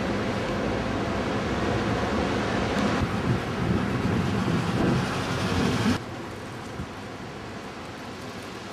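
Outdoor street noise on a camcorder microphone: a steady rumble and hiss with no clear single source, which drops suddenly to a quieter hush about six seconds in.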